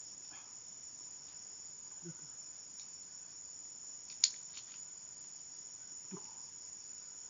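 Steady, high-pitched chorus of insects, with a single sharp click about four seconds in.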